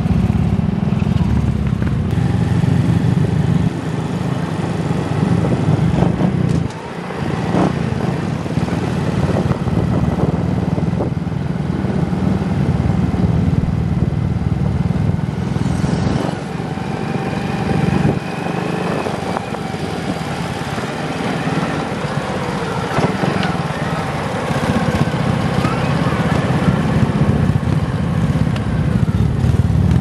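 Small underbone motorcycle engines running as they ride along the road, a steady low drone with a brief dip in level about seven seconds in.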